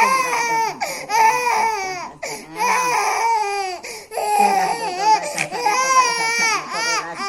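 Baby crying hard: a run of high-pitched wails, each about a second long, with short catches of breath between them.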